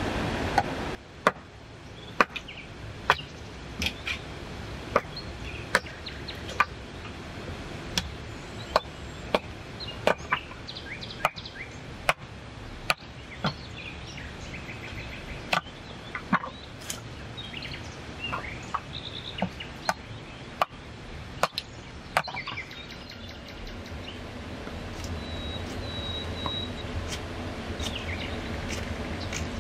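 Hatchet chopping short lengths of wood on the ground: sharp wooden knocks about once a second, stopping about three-quarters of the way through. Birds chirp in the background.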